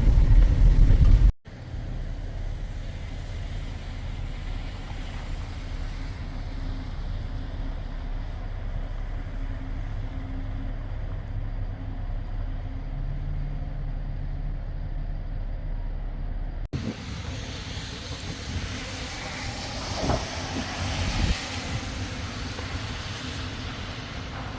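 Vehicle driving: a steady low road-and-engine rumble, broken by two abrupt cuts, about a second in and about two-thirds of the way through. After the second cut the rumble carries more hiss.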